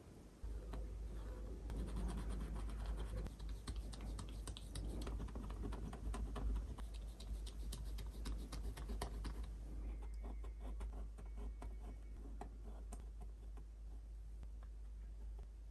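Paintbrush working water-mixable oil paint onto a painting surface: a run of short scratchy strokes and dabs, busy at first and thinning out over the last third.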